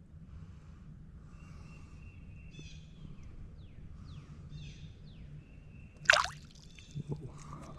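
Birds calling over and over, short whistled notes and quick falling chirps, over a steady low hum. A sudden loud noise about six seconds in, then a few light clicks.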